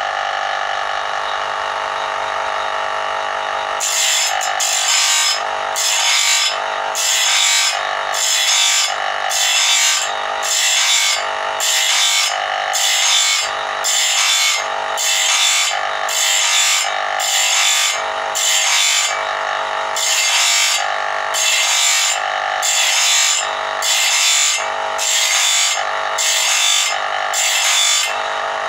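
Electric bench grinder running steadily while the teeth of a sawmill band saw blade are ground one by one on its wheel. From about four seconds in comes a regular rasp of the wheel biting steel, about one stroke every 0.7 seconds, with a short break about two-thirds of the way through.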